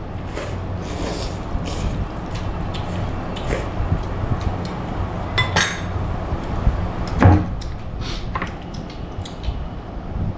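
Tableware clinking and tapping at a meal: a spice shaker shaken over a small ceramic bowl, a spoon in a bowl, with a louder knock about seven seconds in. A steady low hum underneath.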